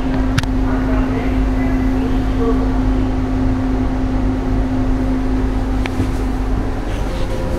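Steady hum and low rumble of a standing EP3D electric train's onboard equipment, heard in the driver's cab, with a steady mid-pitched tone that stops about seven seconds in. Two light clicks, one near the start and one about six seconds in.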